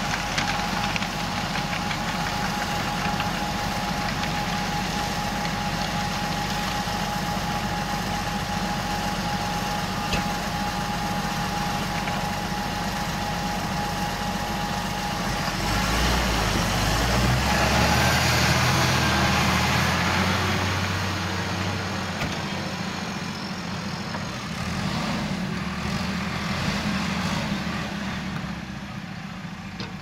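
John Deere tractor engines running under load while working a field, with a steady high whine until about halfway. First the 6820 drives a muck spreader. After a change about halfway the engine note is deeper and louder, as a tractor pulls a reversible plough.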